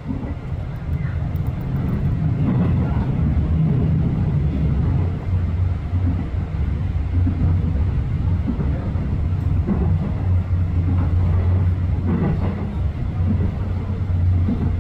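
Subway train running on its line, heard from inside the carriage: a steady, loud low rumble of the wheels and running gear.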